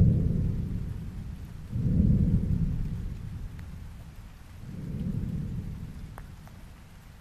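An erupting volcano's explosions heard as deep rumbling booms: one at the very start, a second just under two seconds in, and a weaker third near the middle, each fading over a second or two. A few faint sharp cracks sound over a steady low hiss.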